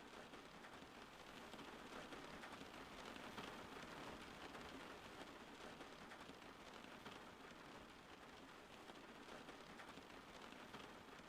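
Faint, steady rain falling, an even hiss with no thunder.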